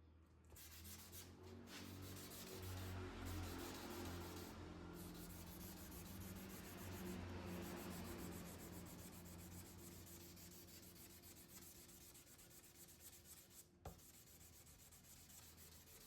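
Faint, steady rubbing of sandpaper by hand on a painted motorcycle body panel, with one sharp tap near the end.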